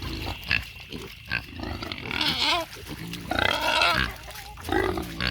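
Pigs grunting and squealing, hungry and waiting to be fed, with a loud squeal a little over two seconds in and a louder, longer one at about three and a half seconds.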